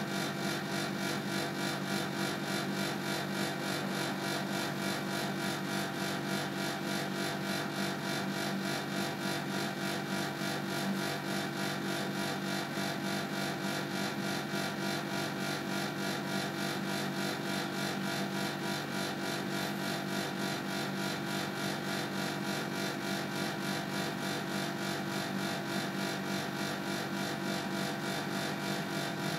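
Panasonic non-inverter air conditioner outdoor unit making an abnormal, steady droning hum with many overtones and a fine fast flutter. It is a strange noise that the unit has made twice and that stops only after about 10 to 15 minutes.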